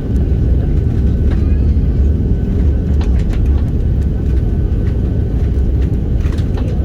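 Steady low rumble of an Airbus A330-300 heard from inside the passenger cabin: engine and airflow noise, with a few faint clicks.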